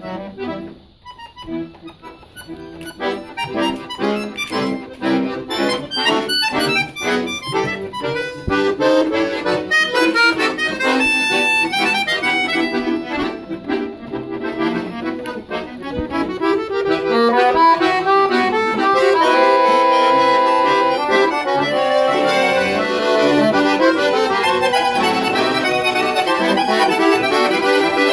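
Three accordions playing together in an improvised trio: quick runs over shifting chords, dipping briefly about a second in, then growing fuller and louder with held chords from about halfway.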